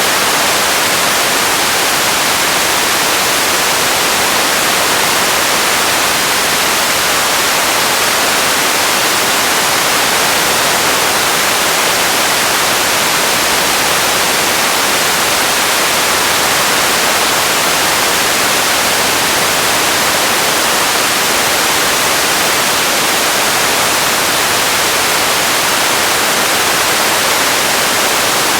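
Radio static: a steady, even hiss of white noise with no tones or voices in it.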